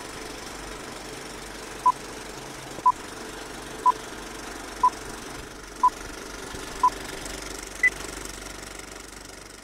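Old-film countdown leader sound effect: a steady film projector whir and clatter with a short beep once a second, six beeps at one pitch and a seventh, higher beep ending the count.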